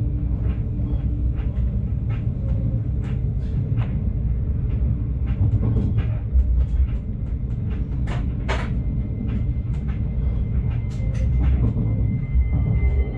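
Stadler GTW diesel multiple unit running along the line, heard from the driver's cab: a steady low rumble of engine and wheels on the rails, with irregular sharp clicks and knocks from the running gear. Near the end a faint ringing tone comes in as the train reaches a level crossing.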